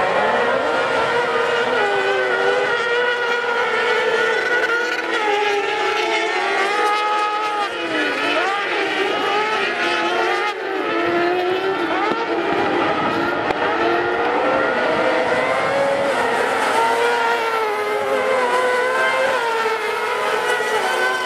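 A pack of kartcross buggies racing, their 600 cc motorcycle engines revving hard. Several engine notes overlap, each rising and falling as the cars brake and accelerate through the corners.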